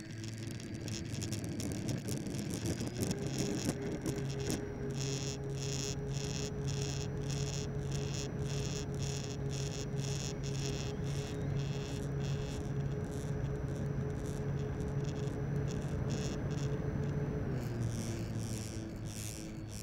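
Electric motor and propeller of an RC model airplane heard from on board, running as a steady whine with wind rush. The pitch steps up about three seconds in as the throttle opens for the take-off and climb, and eases back down near the end.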